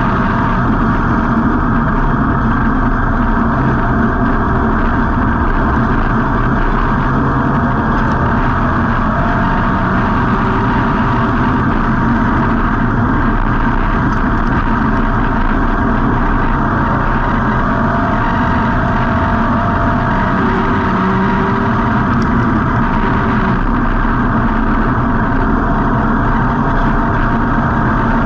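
Street stock race car's V8 engine, heard on board, running at a fairly steady pitch throughout without big revs, along with rushing wind and road noise.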